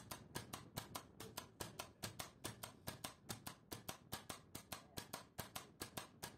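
Relay in a DIN-rail digital timer clicking rapidly and evenly, about five clicks a second, as it switches a lamp on and off. The clicking stops suddenly near the end.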